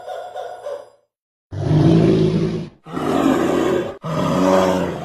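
An animal giving three loud, low, drawn-out calls in a row, each about a second long, after a higher-pitched sound breaks off about a second in.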